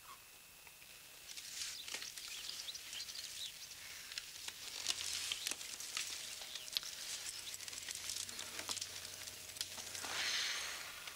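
Faint hiss with scattered soft clicks, then about ten seconds in one breathy whoosh as a woman blows out the candles on a birthday cake.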